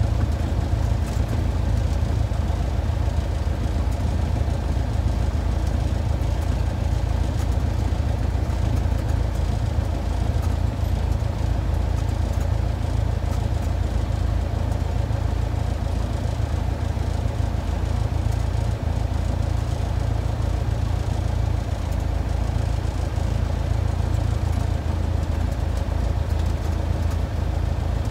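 Single-engine light aircraft's piston engine and propeller running steadily, heard from inside the cabin as the plane taxis on the ground.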